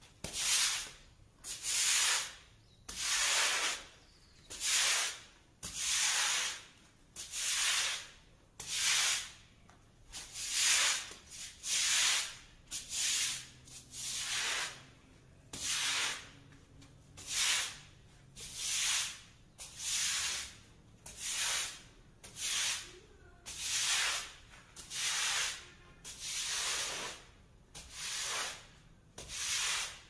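Stiff-bristled push broom scrubbing soapy, wet concrete paving stones in steady back-and-forth strokes, a bristly swish about once a second.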